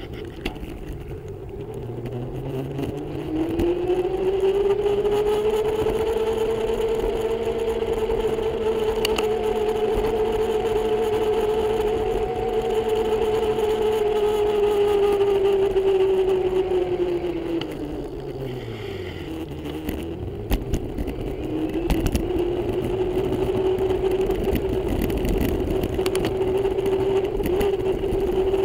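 Electric bike motor whining while riding, its pitch climbing as the bike speeds up and holding steady, then sliding down as the bike slows before rising again, over rushing wind and road noise. A few knocks about two-thirds of the way through.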